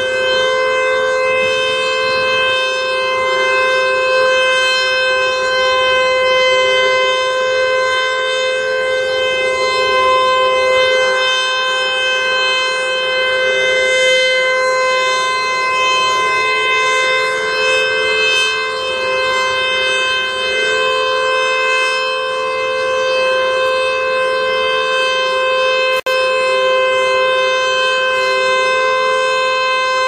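Federal Signal Eclipse 8 outdoor warning siren sounding its steady Alert tone for a weekly test: one unbroken pitch with a weird, rough noise in it that comes from the siren itself. The sound drops out for an instant near the end.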